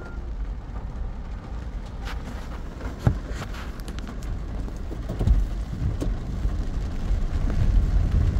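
Rain and road traffic on a waterlogged city street: a steady low rumble with scattered taps, a sharp knock about three seconds in, and the sound growing louder toward the end.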